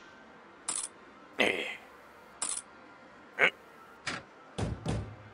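Pachislot machine being played: a run of about seven short, sharp clicks and clunks of its buttons, lever and reel stops, the last three in quick succession.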